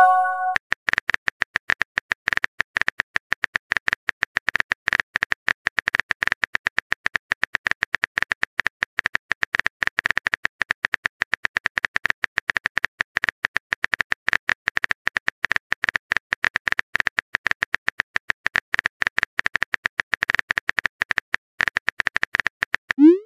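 Texting-story app's keyboard typing sound effect: a fast, irregular stream of soft key clicks as a chat message is typed out. A short message-pop chime sounds at the very start, and a quick rising swoosh comes near the end as the next message is sent.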